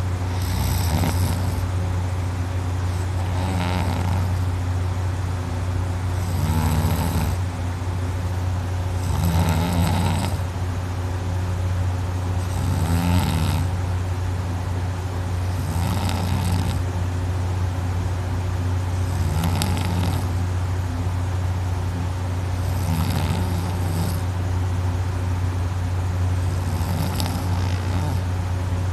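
A person snoring loudly in heavy sleep after drinking too much: about nine rattling snores, one every three seconds or so, from the soft palate and uvula vibrating. A steady low hum runs underneath.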